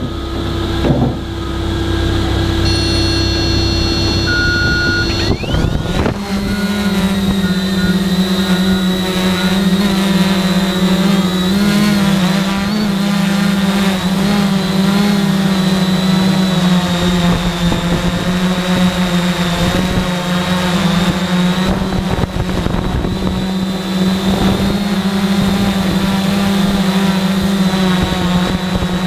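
Multirotor drone's electric motors and propellers. For the first few seconds there is a lower steady hum and a few short high beeps. About five to six seconds in, the motors spin up with a rising whine, then run at a steady high hum as the drone climbs and hovers.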